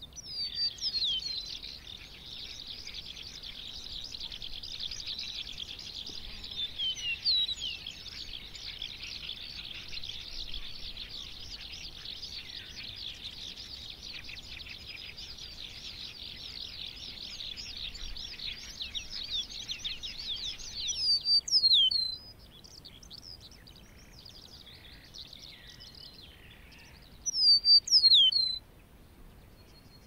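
Lark song: a continuous, rapid, high warbling for about twenty seconds, then sparser chirping broken twice by short, louder bursts of sharp whistled notes, about two-thirds of the way through and near the end.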